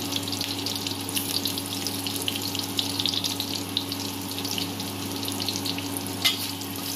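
Chopped onion sizzling and crackling in hot oil in a wok, with a steady low hum underneath and one sharper pop about six seconds in.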